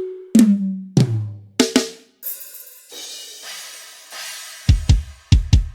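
Sampled drum kit from Addictive Drums, triggered from an Alesis Nitro mesh electronic kit and set to a forró preset. Three ringing tom hits step down in pitch, then a crash cymbal washes out, and a quick run of bass-drum strokes comes near the end.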